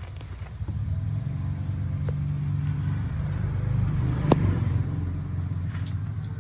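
A small engine running steadily with a low, rumbling hum, and one sharp knock about four seconds in.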